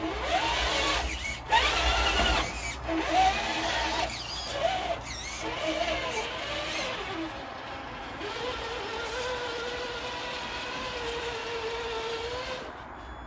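Electric drive motor and gearbox of an RC4WD TrailFinder 2 K10 scale rock crawler whining, the pitch rising and falling with the throttle for the first several seconds, then holding a steady whine that cuts off near the end.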